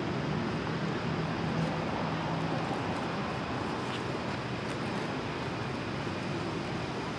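Steady outdoor background noise with a faint, constant low hum, like a distant engine or traffic; no calls from the monkeys.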